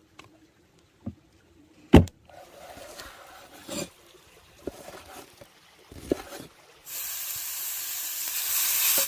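Outdoor cooking: a few knocks of utensils against cookware, with a sharp clack about two seconds in, amid patches of sizzling. Near the end a loud, steady sizzle sets in, as of food going into a hot pan, and grows slightly.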